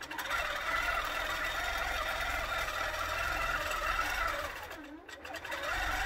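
Qnique 15 longarm quilting machine stitching a pattern under computer automation: a steady running sound whose whine wavers up and down in pitch, dipping briefly about five seconds in.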